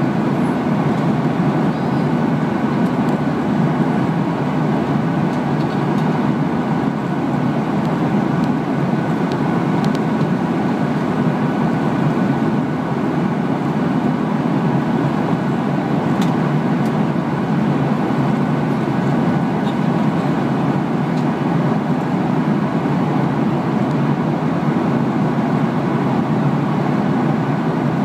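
Steady in-flight cabin noise of a Boeing 737-800: the drone of its CFM56 turbofan engines blended with the rush of air past the fuselage, heard from inside the cabin, with a faint steady whine on top.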